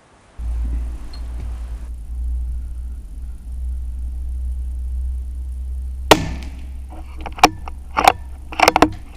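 A Tikka T1X .22 LR bolt-action rifle being fired and worked: five sharp cracks and clacks in the last three seconds, the last two close together. Under them runs a steady low rumble that starts suddenly about half a second in.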